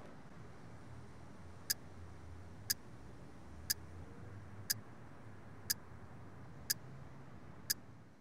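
A clock ticking once a second, sharp and evenly spaced, starting nearly two seconds in, over a faint low hum.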